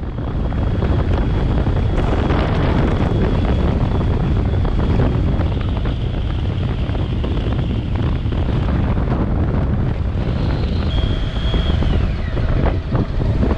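Wind rushing over the microphone of a Honda ST sport-touring motorcycle at road speed, over steady road and engine noise. Near the end a faint high tone slides down in pitch.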